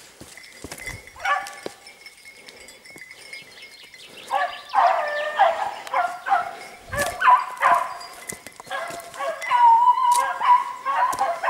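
Beagles baying on a hare's trail. The first bays come about a second in, then from about four seconds in they come fast and loud, with a long drawn-out bay near the end.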